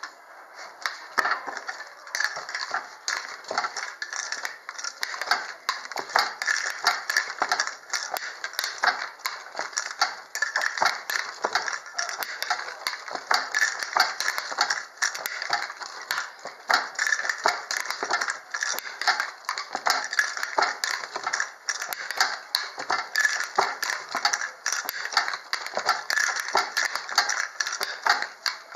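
Traditional narrow-strip handloom clattering as it is worked: a fast, continuous run of wooden clicks and knocks.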